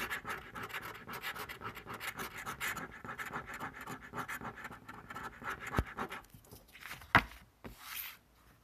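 A coin scraping the rub-off coating off a scratch-off lottery ticket in quick, rough back-and-forth strokes, which stop about six seconds in. A sharp knock follows about a second later.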